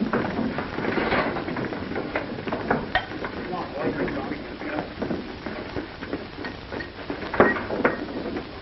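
A ladle scraping and knocking in a cauldron as gruel is served into bowls, with scattered clatter of bowls and one sharper knock about seven and a half seconds in.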